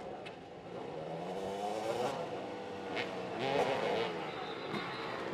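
Several motoball motorcycles running on a dirt pitch, their engines revving up twice as the riders pull away.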